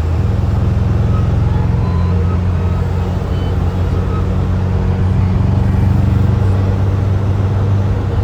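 Subaru WRX's turbocharged flat-four engine running loud and rough with an uneven pulse in its low drone, the sign of a misfire in cylinder 3, which the driver at first took for a blown turbo. The engine note shifts slightly about six seconds in.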